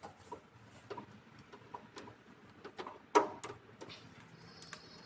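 Scattered light clicks and taps of a cable and tools being handled at a hybrid inverter's solar input terminals, with one louder knock about three seconds in.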